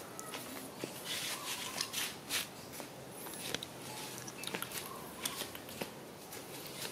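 Irregular light scratching and rustling of small paws and bodies scrabbling on dry dirt and dead leaves, a baby macaque and a puppy tussling, with scattered sharp little clicks.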